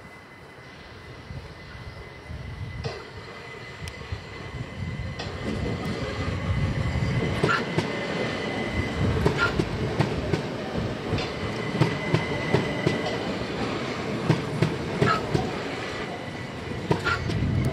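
Southern Class 377 Electrostar electric multiple unit approaching and running past close below, growing louder over the first several seconds into a steady rumble. Its wheels clack over the points and rail joints in a string of sharp knocks.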